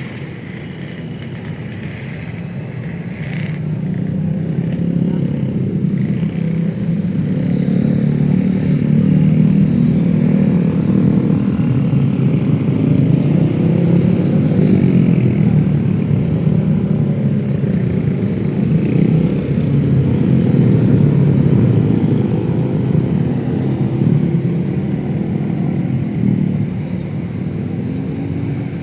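Street traffic of motorcycles and cars going by, their engines growing louder a few seconds in and easing again near the end.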